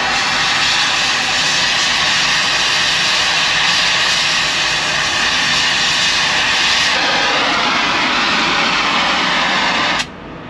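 Oxy-acetylene cutting torch running with a steady, loud hiss as it cuts the old brake spider off a semi-trailer axle down to the parent metal. It stops abruptly near the end.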